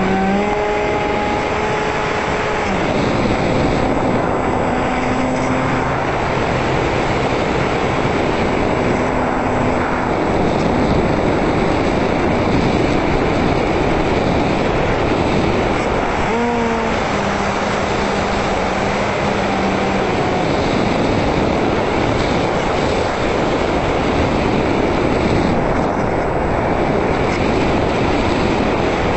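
Sound recorded aboard a Multiplex EasyStar radio-controlled plane in flight: steady, loud wind rush over the onboard camera, with the electric motor and pusher propeller whining underneath. The whine rises in pitch near the start and again a little past halfway, holding for a few seconds each time as the throttle changes.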